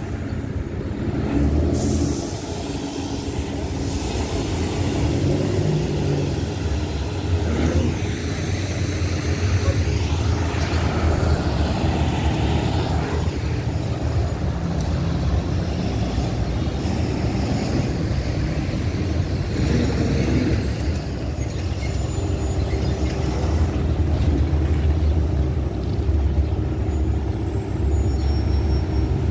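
Heavy city traffic: diesel buses and a box truck running and pulling past, a steady low engine rumble with occasional hisses of air brakes.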